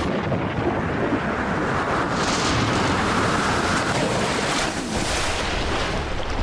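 Choppy sea water sloshing and splashing around a swimming dog and the man it is towing, with wind buffeting the microphone. Brief louder rushes of water come about two seconds and five seconds in.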